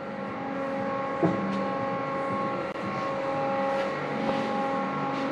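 Steady mechanical hum made of several held tones over a noisy background, with a single short knock about a second in.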